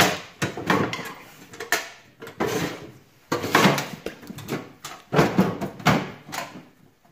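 A long steel safe deposit box sliding out of its slot in a vault's wall of boxes, metal scraping on metal in several separate scrapes and knocks, then clunking as it is lowered.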